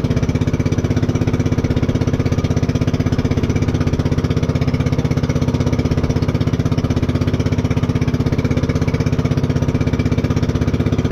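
Engine of a motorised outrigger boat (bangka) running steadily under way, with a fast, even chugging pulse.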